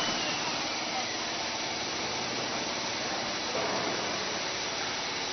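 Steady, even hiss of background noise, with faint voices now and then.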